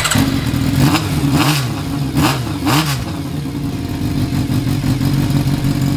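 Kawasaki Zephyr 400χ's air-cooled inline-four engine running. It is blipped about four times in the first three seconds, then settles to a steady idle. It is running on a freshly fitted battery that cured a no-start.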